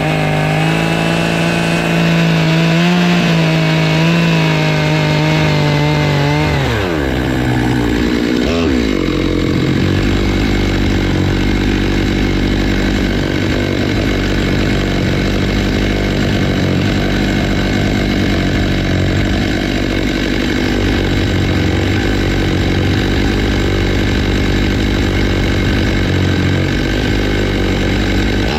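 Stihl MS 661 two-stroke chainsaw, with a 20-inch bar and ripping chain on a Logosol F2 Plus chainsaw mill, running at high revs while milling a walnut log. About six and a half seconds in its pitch drops sharply, and it runs on loud at a much lower, rougher speed.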